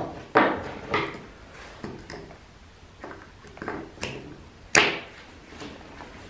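Hand wire cutters snipping through thin wires of a remote-start bypass harness: a series of sharp snips at uneven intervals, the loudest about three-quarters of the way through. The unneeded wires are being trimmed off the harness.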